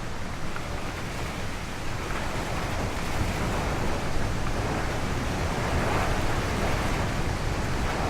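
Car driving in a blizzard: a steady rush of road and wind noise that grows louder over the first few seconds, then holds.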